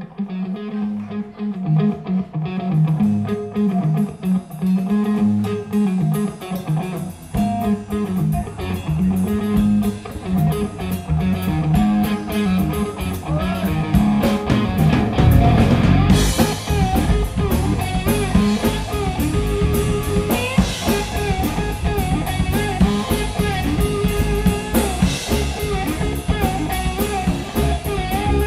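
Blues-rock band playing live: a repeating electric guitar riff over drums, with bass, the full band getting louder about halfway through.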